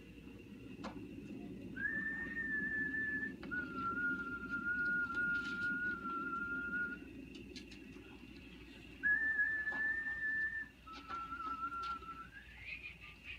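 A man whistling a slow tune through a television's speaker, in long held notes: a high note falling to a longer, lower one, then the same pair again, ending in a rising slide.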